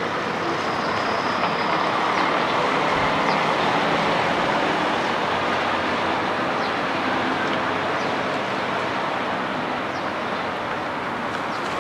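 Nissan Diesel UA city bus (KL-UA452MAN) diesel engine running as the bus pulls away and drives off. It is loudest a few seconds in, then eases off into street traffic.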